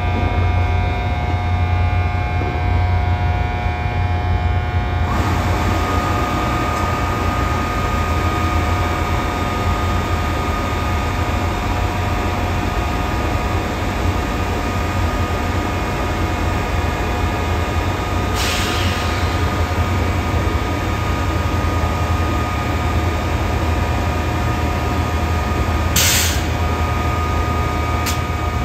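A train locomotive idling close by: a steady low hum with a few steady whining tones above it. Short hisses cut in about two-thirds of the way through and again near the end.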